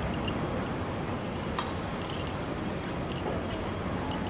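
Steady city street background noise of distant traffic, with a few faint clicks.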